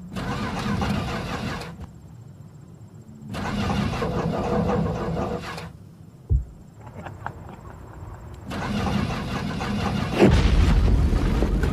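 An engine cranking or turning over in three separate runs of about two seconds each, the last one louder, with a deep low thump about ten seconds in.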